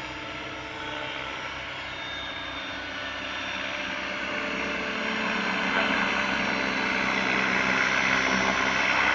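Several Align T-Rex radio-controlled helicopters hovering together, their rotors and drive whining as a steady mix of tones that grows louder from about halfway through.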